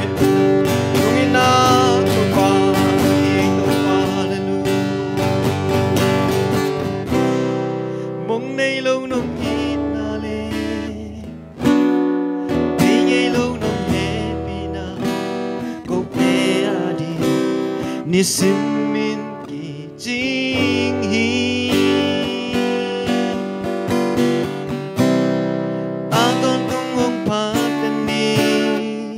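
A man singing a worship song into a microphone while strumming an acoustic guitar.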